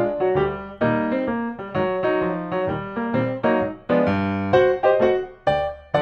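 Background piano music: a melody of struck notes, each starting sharply and fading away.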